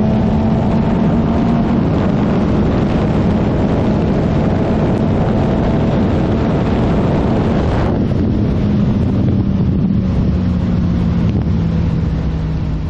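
Naked sport motorcycle with a full aftermarket exhaust running at highway speed. Heavy wind noise buffets the microphone over the engine's steady drone, which slowly falls in pitch as the bike eases off. About eight seconds in, the wind hiss suddenly lessens.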